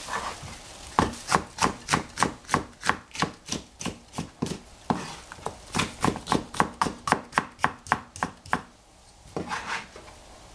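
Knife chopping vegetables on a cutting board: a steady run of quick, even strokes, about three a second, with a short pause midway, then a few softer knocks near the end.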